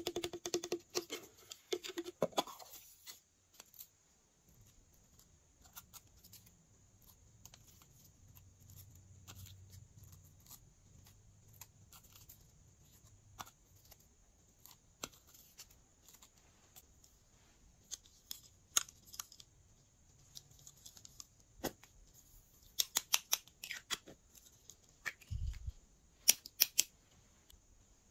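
Hands handling small plastic containers and decorations: sparse crisp clicks and taps, a busy clatter as a container is opened at the start and another cluster of clicks near the end, with one soft low thump.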